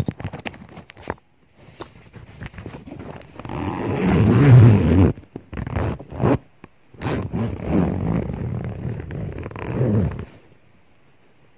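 A bag being rummaged through close to the microphone: scattered clicks, then two long bouts of loud rustling and scraping, with a few sharp knocks between them. It stops about a second before the end.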